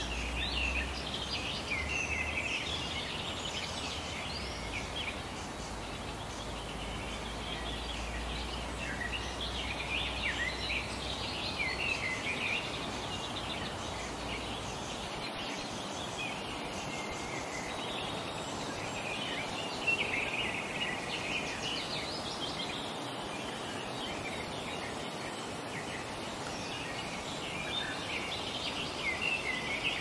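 A chorus of tropical forest birds chirping and singing in many short, overlapping calls over a steady background hiss. A low rumble sits under it and drops away about halfway through.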